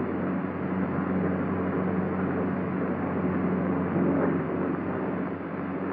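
P-47 Thunderbolt's Pratt & Whitney R-2800 radial engine and propeller droning steadily in flight, heard on an old, band-limited film soundtrack.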